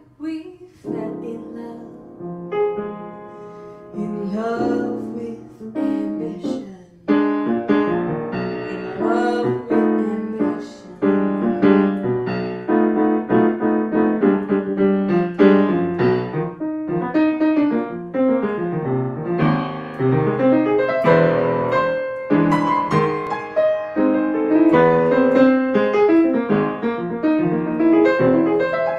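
Grand piano played solo: a sparse, quieter passage, then from about seven seconds in fuller, louder chords and runs.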